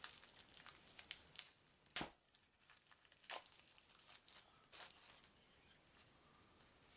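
Wrapping being torn and crinkled off a stack of board-game cards: faint crinkles with a few sharper snaps, the sharpest about two seconds in.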